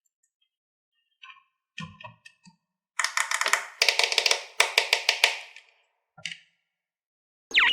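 A run of rapid clattering taps lasting a couple of seconds, after a few scattered clicks. Near the end a loud falling whistle begins.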